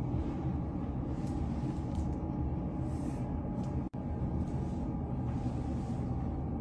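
Steady low rumble of indoor background noise with a faint constant hum, cut by a momentary dropout about four seconds in.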